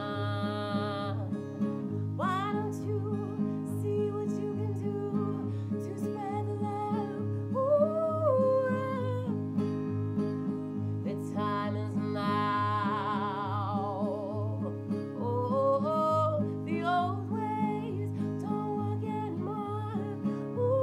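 A woman singing long held notes over a steadily strummed acoustic guitar, with a wide vibrato on one note about twelve seconds in.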